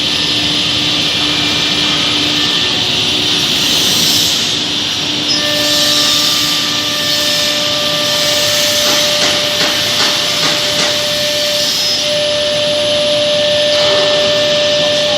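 Heavy-duty CNC nesting router's 9 kW spindle cutting wood panel board: a steady loud hiss of the bit in the board, with a thin machine whine that steps up in pitch about five seconds in.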